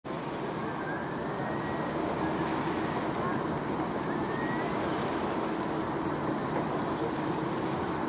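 Steady background rumble of distant traffic with a faint steady hum. A few faint short rising whistles come about one, two and four seconds in.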